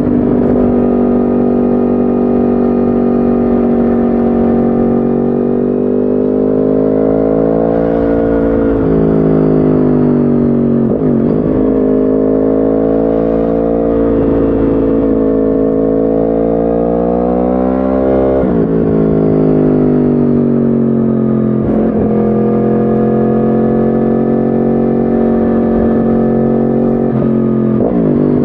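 2010 Yamaha R1's crossplane inline-four, through a decatted Akrapovic exhaust, running under way while riding. The revs rise and fall gently, with a few brief, sharp dips in pitch.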